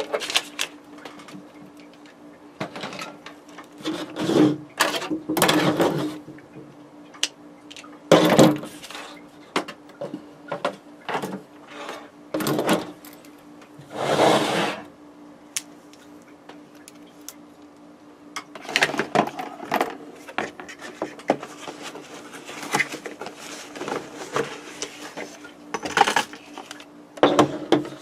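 Hands handling wiring harness parts and tools on a workbench: scattered clicks, knocks and rustles, with a longer rubbing rustle about halfway through, over a steady low hum.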